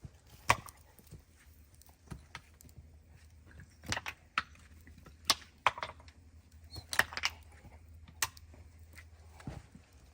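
A dozen or so irregular light knocks and clicks, the sharpest about half a second in, over a faint low steady hum.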